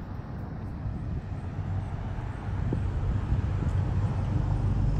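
Street traffic: a motor vehicle's engine rumble growing gradually louder as it approaches.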